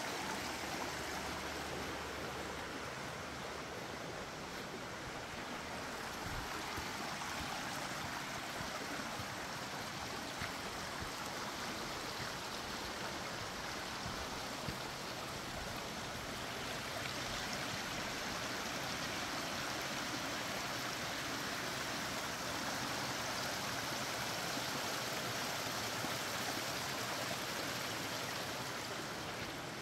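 Creek water rushing steadily over rocks, an even unbroken hiss of running water.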